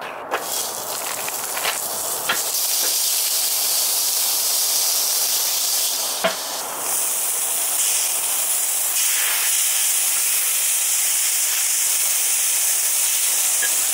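Beef patties sizzling on the hot grate of a Weber Q1200 gas grill, a steady hiss that grows louder partway through. A few light knocks come in the first couple of seconds and a louder one about six seconds in.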